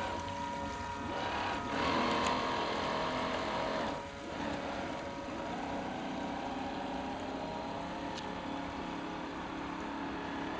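Radio-controlled model boat's motor running with a steady whine, its pitch gliding up and down a little around the middle, over the hiss of its wash through the water.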